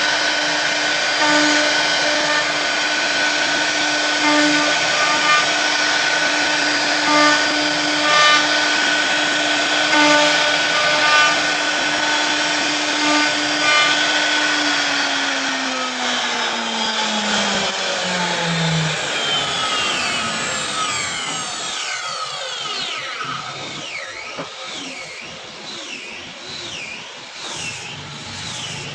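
CNC router spindle running at a steady high whine while cutting, with louder surges every second or so as the bit passes through the material. About halfway through, the whine drops smoothly in pitch as the spindle spins down. High sweeping, warbling tones follow.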